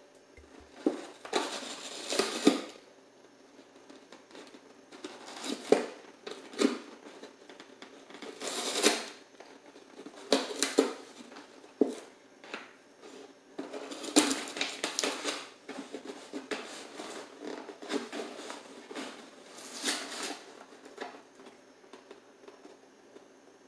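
Dog chewing and tearing at a cardboard tube, in irregular bursts of crunching and ripping cardboard a few seconds apart.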